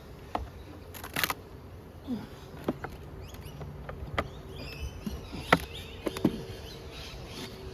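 Wooden beehive frames and a hive tool clicking and knocking as the hive is worked through, with a steady buzzing of honey bees that comes in about halfway through.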